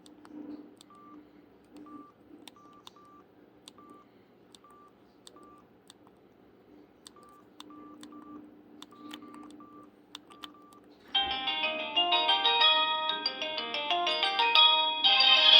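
Samsung D347 phone's keypad beeps as its buttons are pressed to scroll the menu: short, identical high beeps at irregular spacing, each with a faint click. About eleven seconds in, one of its preloaded polyphonic ringtones starts playing loudly from the phone's speaker.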